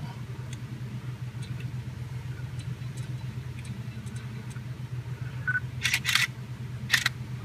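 Car engine idling steadily, a low hum heard from inside the cabin, with a few sharp clicks near the end.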